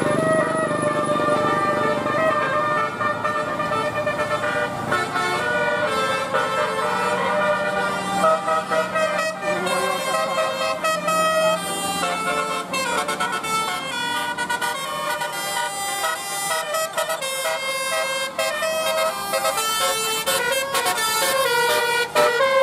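Telolet bus horns: a bus's multi-tone musical air horns playing a tune, several notes at once, stepping quickly from chord to chord and repeating the pattern over and over.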